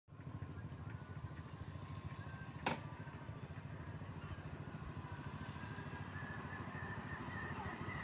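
A small engine running steadily with a low, fast-pulsing rumble. A single sharp click comes about two and a half seconds in.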